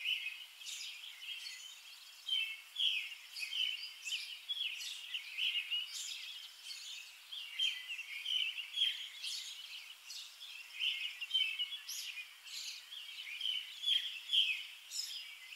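Small birds chirping outdoors: many short, high calls in quick succession, overlapping throughout.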